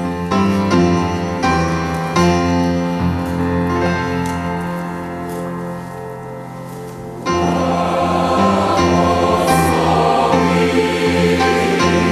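Grand piano playing an introduction of slow, sustained chords. About seven seconds in, a mixed choir of men and women comes in singing over the piano.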